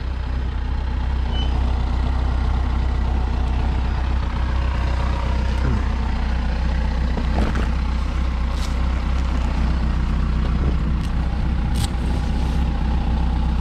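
Yamaha FZ6 motorcycle's inline-four engine idling steadily while the bike stands still.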